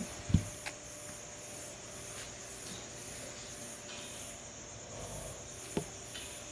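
Insects chirping in an even pulse, about two chirps a second, over a steady low hiss. There is a thump just after the start and a couple of short clicks, one near the end.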